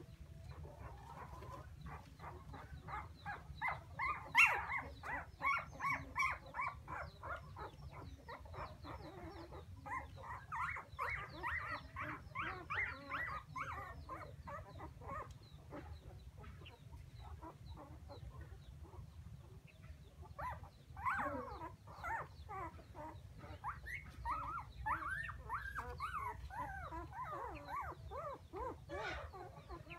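Newborn puppies crying for their mother: runs of short, high-pitched whimpering cries, several a second. They come in bouts with quieter pauses between.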